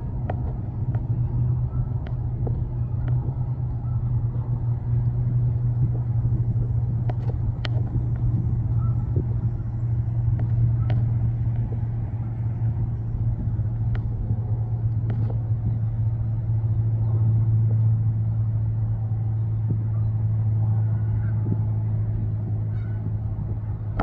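Steady low hum of an idling engine, with a few faint, sharp clicks over it.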